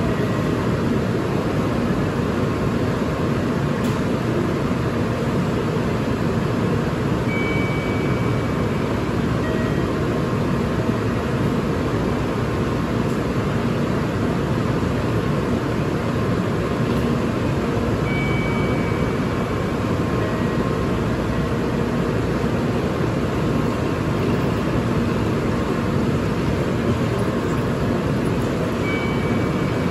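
Steady, even hum and hiss of a Shinkansen platform with a train standing at it. Faint short high tones come back about every ten seconds.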